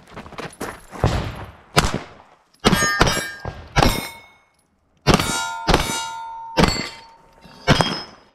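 A string of pistol shots, several of them followed by the ringing clang of steel target plates being hit.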